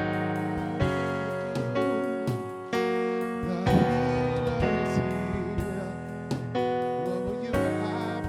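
Keyboard playing slow worship music in sustained piano-like chords, a new chord struck about once a second and left ringing.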